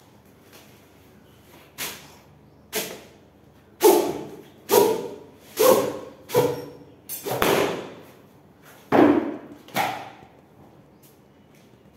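A run of about ten sharp slaps and thumps, roughly one a second, as a cardboard carton of PVC vinyl flooring planks is lifted and shaken and a plank slides out and flops onto the floor.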